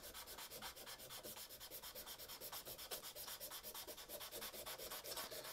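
Sandpaper rubbed by hand in quick, short back-and-forth strokes over the steel head of a Vulcan hewing axe: a faint, even scratching.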